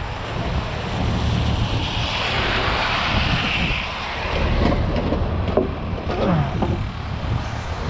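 Wind rumbling on the microphone over freeway traffic on wet pavement; one vehicle's tyre hiss swells and fades about two to four seconds in.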